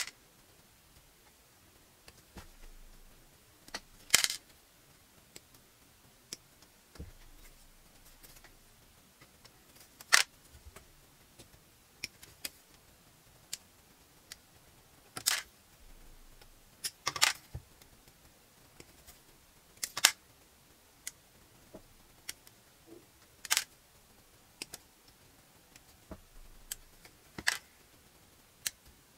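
Hobby nippers snipping plastic model-kit parts off the runner: about eight sharp snips a few seconds apart, with softer clicks and taps between.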